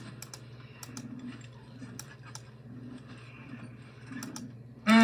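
Faint, irregular clicks of a computer keyboard being typed on, over a low hum. Right at the end a loud, steady horn honk starts suddenly.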